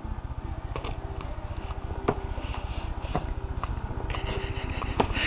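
A baby mouthing and grabbing a feeding spoon: a few short clicks and wet mouth sounds, with a brief hissy spit-like burst near the end, over a steady low hum.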